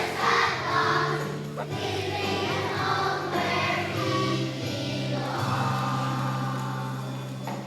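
Children's choir singing a song over instrumental accompaniment with held low notes.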